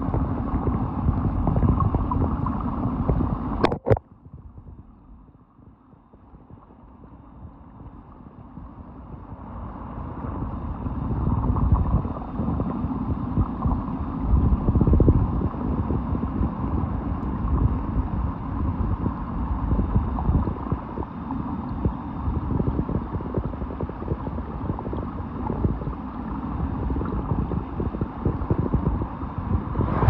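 Muffled rush and gurgle of waterfall stream water heard through a microphone held underwater, mostly a low, dull rumble. About four seconds in, a sharp knock, after which the sound falls away and then swells slowly back to a steady rush over the next several seconds.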